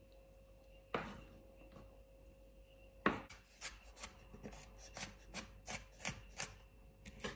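Kitchen knife chopping on a cutting board, mincing onion and garlic by hand: a single knock about a second in, then a run of quick chops, about four a second, from about three seconds in.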